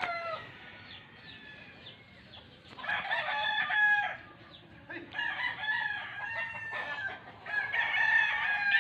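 Chickens calling, with roosters crowing: overlapping calls come in three bouts, the first about three seconds in and the last running on past the end.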